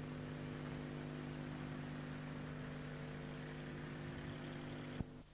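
Steady electrical buzzing hum with hiss. A click about five seconds in cuts it off, leaving only faint hiss.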